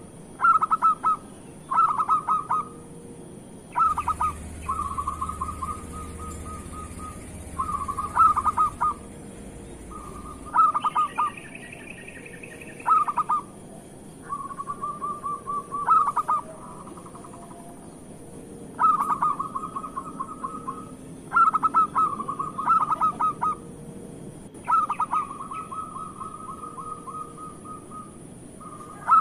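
Zebra dove (perkutut) singing its cooing song over and over: each phrase is a run of quick clipped notes running into a longer rolling coo, repeated every few seconds. A higher, different call comes in briefly near the middle.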